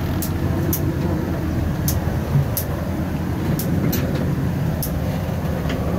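Steady low rumble inside a boat's cabin in stormy seas, with a few sharp high ticks at irregular intervals.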